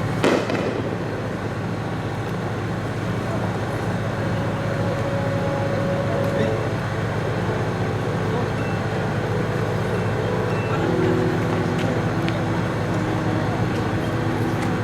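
One aerial firework shell bursting with a sharp bang just after the start, followed by steady crowd chatter.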